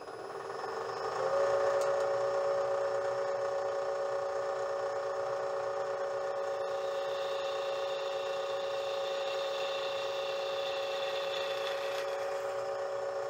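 Bridgeport milling machine spinning up, then running with a steady whine as a 3/8-inch drill bit bores through quarter-inch steel plate. Higher tones join in about halfway through and drop away near the end.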